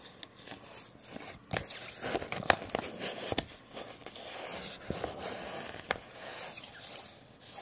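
A sheet of paper being slid back and forth under a resin printer's build plate, scraping and crinkling, with a few sharp clicks. It is the paper-test for leveling: the paper drags as the plate comes down onto it.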